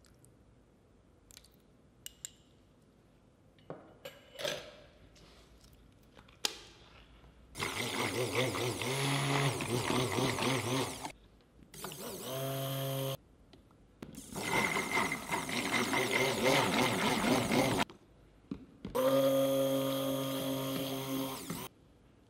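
Electric stick blender whirring in short bursts in a jug of soap batter: four runs of a few seconds each, switched on and off abruptly, the second one quieter. Before them, a few light clicks of utensils against the plastic jugs.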